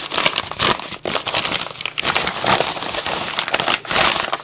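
A paper padded mailer (jiffy bag) crinkling and rustling as it is handled and opened, with a dense, irregular crackle throughout.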